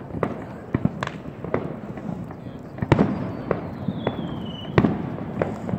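Irregular sharp cracks and pops from a burning dry Christmas tree together with Fourth of July fireworks, the loudest bangs about three and five seconds in. A thin whistle falls slowly in pitch in the middle.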